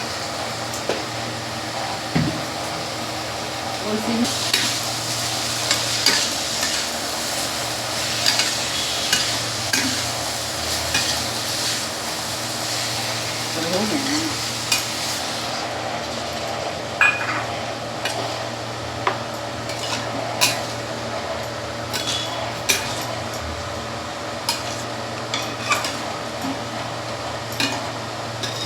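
Besan ki sabzi being stirred and scraped in a pan on the stove: a steady sizzle with frequent sharp clicks of the spatula against the pan.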